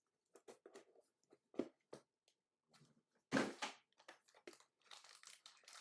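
Handling of a trading-card box and its packaging: scattered clicks and light rustles, with a louder scraping rustle a little over three seconds in.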